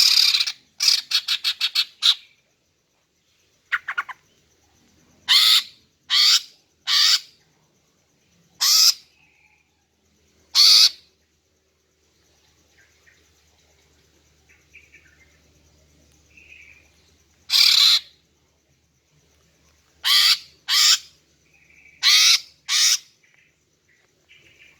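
Female greater green leafbird (cucak ijo) giving short, harsh calls in loose clusters, with a rapid stuttering run near the start and pauses of a few seconds between groups. This is the hen's call that keepers play to make males answer and sing.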